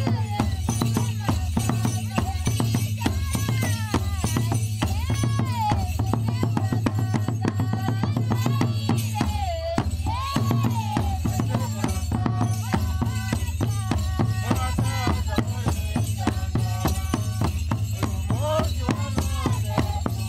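Traditional African dance music: drums and shaken rattles keeping a fast, steady rhythm, with a voice singing a melody over them.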